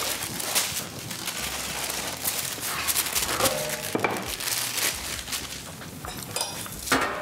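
Baking paper crinkling and rustling as it is peeled off chilled tart dough and handled, with a few small clinks of kitchenware.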